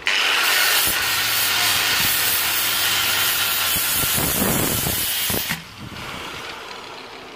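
Electric angle grinder with a foam-backed pad pressed against a rusty steel axe head to take off rust: a loud, steady hiss that cuts in suddenly and stops about five and a half seconds in, then a quieter fading sound as the grinder winds down.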